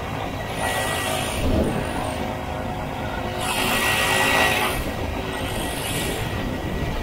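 Single-cylinder two-stroke engine of a 1967 Ski-Doo Olympique snowmobile running steadily under way, with the rush of the ride. A high hiss swells briefly about a second in and again around four seconds in.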